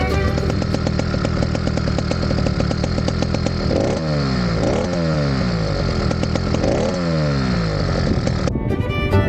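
Small two-stroke motorized-bicycle engine running with a rapid buzzing beat. Its pitch swings up and falls away three times as the throttle is blipped, about four seconds in, a moment later, and near seven seconds.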